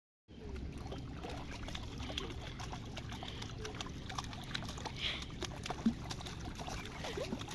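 Steady outdoor background noise with faint scattered clicks and short high chirps, starting abruptly just after the beginning.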